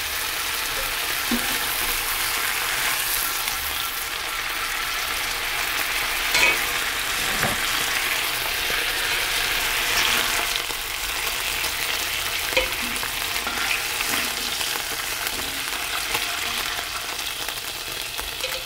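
Cubes of skirt steak browning in hot oil in a frying pan, a steady sizzle. A few short clicks and scrapes come from the spatula and slotted spoon against the pan as the meat is turned and lifted out.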